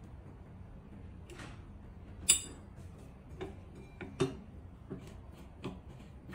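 Small metal clicks and taps from fitting a wood stove's front door to its fastener and working its screw with a hex key: one sharper, ringing metallic clink about two seconds in, then lighter ticks roughly once a second.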